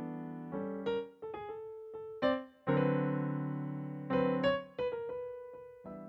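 Yamaha keyboard played live in a piano tone, with no drums. Slow chords are struck one after another and left to ring and fade, with two short pauses around one second and two and a half seconds in.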